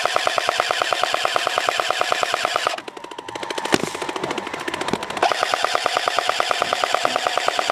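Airsoft M249 SAW firing long full-auto bursts: a rapid, even chatter of shots over a steady whine. The first burst stops about three seconds in, a single shot follows in the pause, and a second long burst starts about two seconds later.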